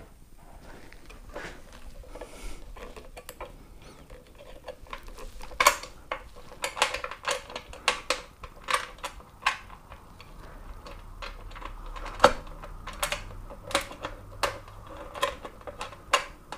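Irregular small clicks and taps of fingers and a small screw against the plastic headlight fairing and its metal mount, as the fairing screw is fished into place and started in its thread by hand.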